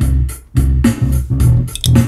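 Guitar music played through a looper pedal: strummed guitar chords over a deep bass part, in a steady rhythm of short, chopped strokes.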